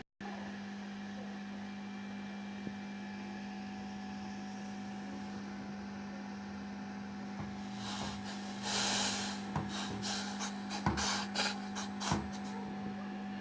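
Steady electrical hum. In the second half comes a run of light clicks and knocks, with a short hiss about nine seconds in.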